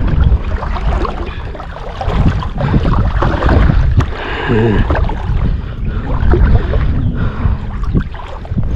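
Wind buffeting the microphone with water sloshing and swishing as someone wades through shallow, grassy marsh water; the loudness rises and falls unevenly.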